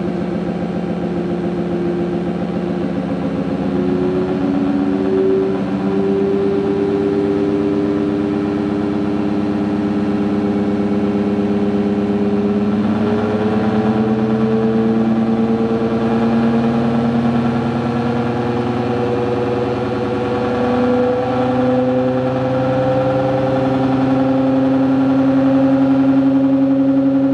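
ReGen-X pulsed DC stepper motor running, its hum made of several steady tones whose pitch climbs slowly as the motor speeds up.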